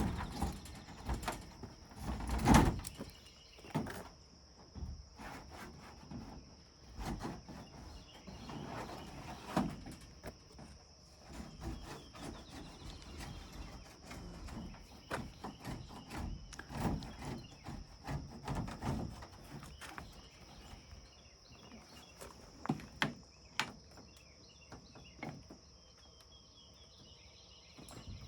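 Irregular knocks, scrapes and rattles of hand work on a vintage camper's wall and fittings, the loudest a thump about two and a half seconds in, over a steady high insect drone typical of crickets.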